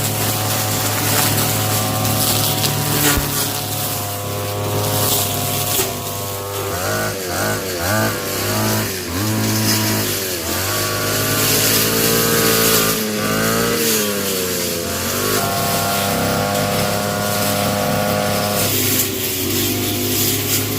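A small petrol engine running continuously, its speed rising and falling several times in the middle before settling to a steady pitch.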